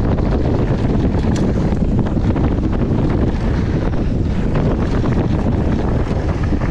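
Heavy wind buffeting on the microphone, over the rumble and clatter of a downhill mountain bike's tyres running fast on loose gravel.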